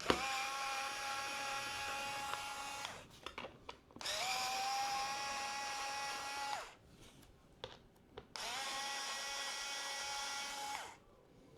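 Small cordless electric precision screwdriver motor whining in three separate runs of about two and a half seconds each, backing out pentalobe screws at its fast speed setting. Each run starts with a quick rise in pitch, then holds steady and stops abruptly, with faint clicks in between.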